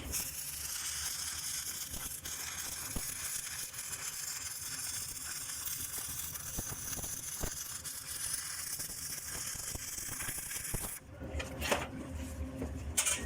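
Stick welding arc crackling and sizzling steadily as a bead is run, cutting off about eleven seconds in. A low hum and a few sharp clicks follow.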